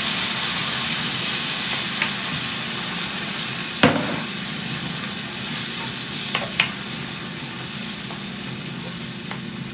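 Blended fresh tomato sizzling in hot oil in a frying pan as it is poured over onion, garlic and chili, the sizzle slowly dying down as it is stirred with a spatula. A sharp knock about four seconds in and two lighter clicks a little later.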